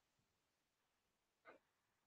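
Near silence: faint room tone, with one brief faint sound about one and a half seconds in.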